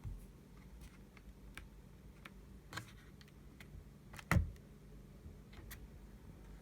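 Laptop lid being worked back and forth, giving scattered small clicks and creaks, with one louder knock a little after four seconds in. The clicking and creaking of the lid is the fault being shown, though the lid itself opens smoothly and holds firm.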